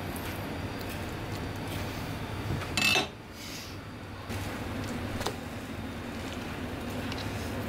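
Steady low hum of room background noise with a few faint clicks, and one brief, loud noise about three seconds in.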